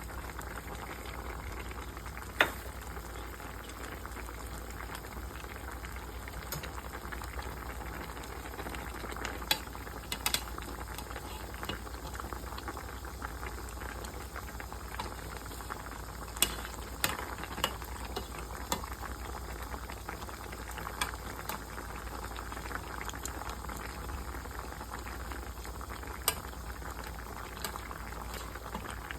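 Dakdoritang, spicy braised chicken stew, bubbling at a steady boil in a pot, with a few sharp clinks of a utensil against the pot.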